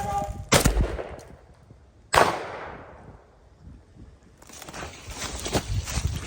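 Two shotgun shots about a second and a half apart, each ringing off afterward, the second the louder. From about four and a half seconds in comes a rustling crackle of dry brush.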